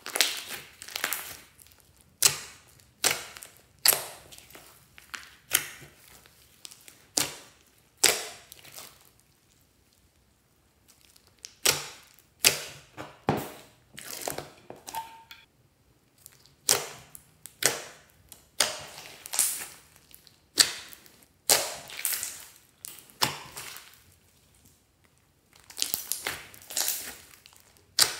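Glossy slime studded with foam beads being squeezed and folded by hand: a run of wet squelching pops, roughly one a second, with two short pauses.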